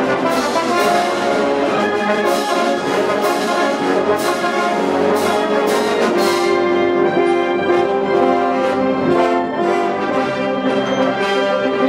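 Large symphonic wind band playing film music in a big-band style, with massed brass, clarinets, bassoons and tubas, and sharp accented strokes, about two a second, through the first half.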